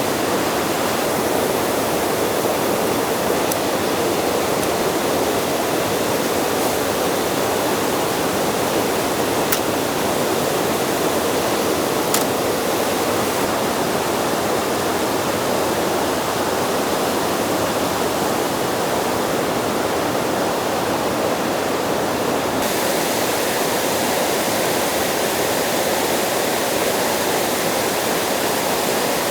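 Steady rushing noise with a few faint ticks, a little thinner in the highs near the end.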